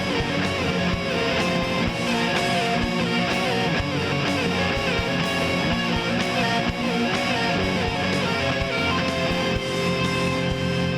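Instrumental stretch of a home-recorded nu-metal song: electric guitar riffing over a steady drum beat, with no vocals.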